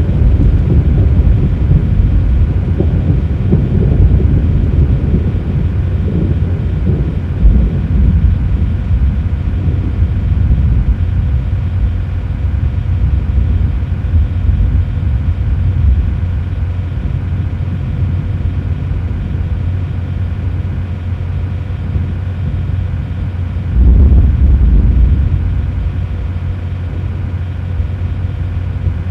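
Loud, continuous low rumble of a thunderstorm, swelling louder for a couple of seconds near the end.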